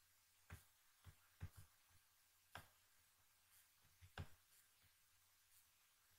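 Near silence: a faint steady low hum with about five faint, short clicks, the loudest around two and a half and four seconds in.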